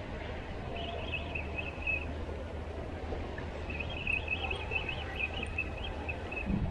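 Wind buffeting the microphone with a steady low rumble over choppy water. Above it come two stretches of high twittering chirps: a short one about a second in, and a longer one of about two seconds in the middle.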